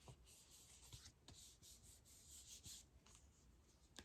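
Faint rustling and a few light taps of paper and cardstock being handled and folded.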